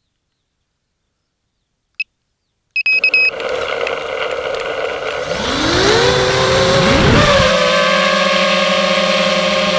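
FPV quadcopter's electric motors spooling up for takeoff: a whine that rises in pitch twice, then holds steady as the drone lifts off. A short beep comes about two seconds in, followed by a few quick beeps just before the motors start.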